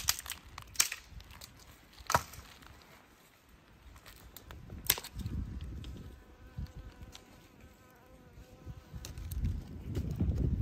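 Dry branches snapped by hand: four sharp cracks in the first five seconds, then rustling and handling noise as the twigs are gathered and laid down. A faint insect-like buzz runs through the middle.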